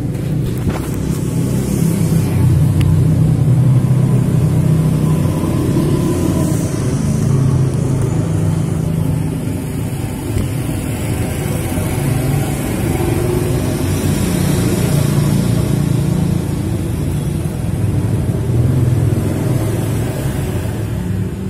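Single-cylinder four-stroke engine of a Honda Megapro-based custom CB, rebuilt to 228 cc with a 70 mm stroke, running on its stand. The note rises and eases a little now and then. This is the freshly assembled engine's running check.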